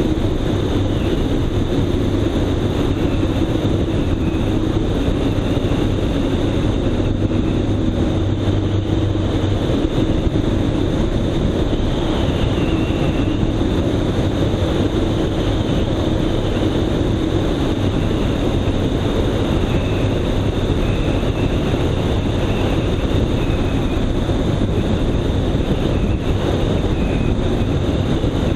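Small airplane's engine droning steadily in flight, mixed with heavy wind rush over the microphone.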